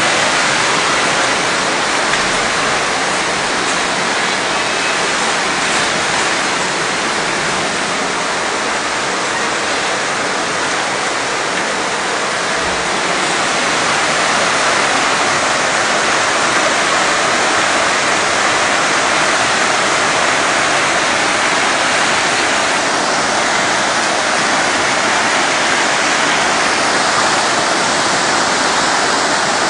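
Floodwater torrent rushing down a street, a steady loud roar of churning water.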